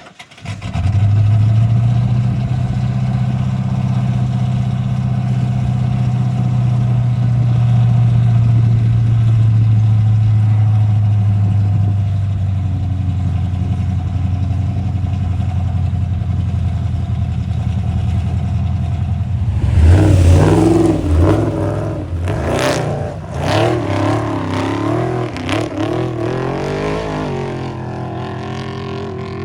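Off-road race vehicle engine starting loud and running at a steady drone. About twenty seconds in it revs up and down rapidly, with clattering knocks, then settles lower near the end.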